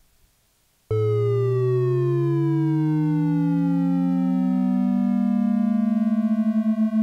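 Two synthesized triangle-wave tones from p5.js oscillators start together about a second in, one in each stereo channel. One glides steadily down in pitch and the other glides up until they nearly meet. Near the end the two tones are held slightly apart in pitch, so they beat with a throbbing pulse.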